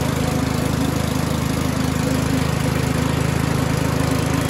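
A small engine running steadily at a constant speed: an even, low-pitched drone with a fast, regular pulse.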